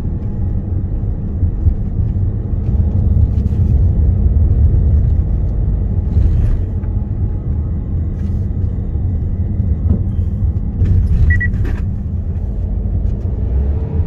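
Steady low rumble of road and engine noise heard inside a moving car's cabin, with a few brief clicks near the middle and end.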